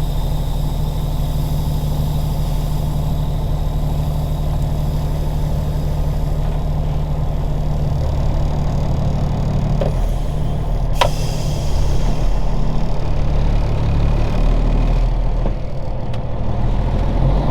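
Cummins Signature 600 inline-six diesel in a 1999 Peterbilt 379 idling steadily. There is one sharp click about eleven seconds in, and the engine gets a little louder from about twelve seconds.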